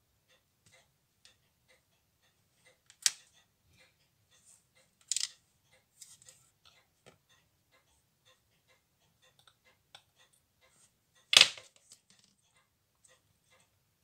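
Small metal clicks of steel tweezers and a screwdriver working on a Tissot pocket watch movement as it is taken apart, with one sharp click about three seconds in, a short cluster around five seconds and the loudest click about eleven seconds in. A faint regular ticking runs underneath, about twice a second.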